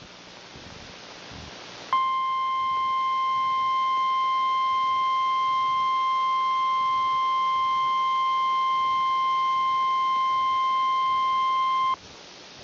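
Emergency alert attention tone: a single steady tone of about 1050 Hz, the NOAA Weather Radio warning alarm, sounds for ten seconds after a couple of seconds of static hiss and cuts off sharply. It signals that a tornado warning follows.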